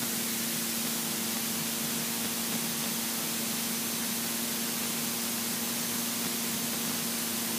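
Steady hiss with a low, even hum underneath: the open line of a light aircraft's cockpit intercom and radio audio between transmissions, with the engine heard only faintly through it.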